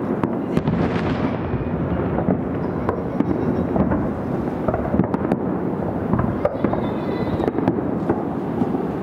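Aerial firework shells bursting from several launch sites at once, a continuous rumble of booms with many sharp bangs and crackles overlapping in quick succession.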